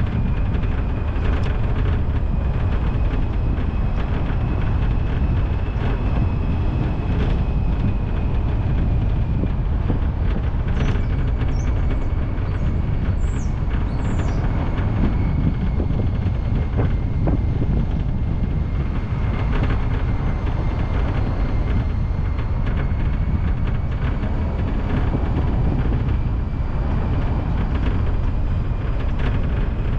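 A car driving along the road: a steady low rumble of tyres and engine with a faint, steady high whine above it.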